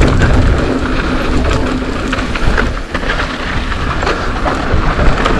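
Mountain bike being ridden down a rough dirt trail: tyre noise with a steady low rumble and frequent rattling clicks from the bike.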